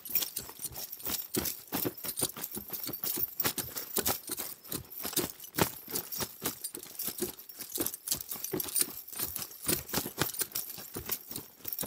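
Horse bridle being moved: metal bit rings and buckles jingling and clinking in quick, irregular clicks.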